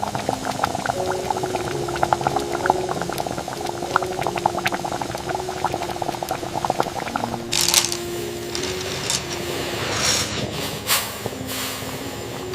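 Liquid bubbling and gurgling in a pot, with many small pops, over soft music with held notes. A brief loud hiss comes about seven and a half seconds in, and shorter ones follow near the end.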